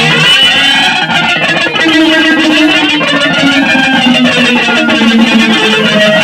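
Loud, dense noise-jam music led by electric guitar run through effects, with held notes under a busy, noisy top end.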